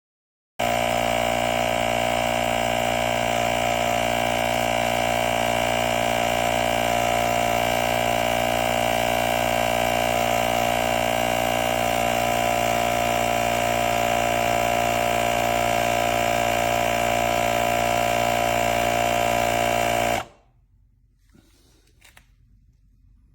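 Small electric air compressor of a portable jump starter running steadily, then stopping suddenly after about twenty seconds.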